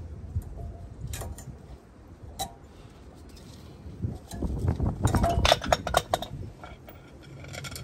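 Metal clinking and rattling of tools and brake parts being handled at a truck's front disc brake: a few single clicks, then a denser run of clinks about four to six seconds in.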